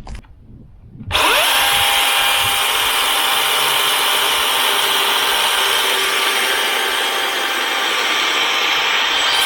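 DeWalt 60V battery-powered chainsaw starting up about a second in and then running steadily, cutting through a cedar log.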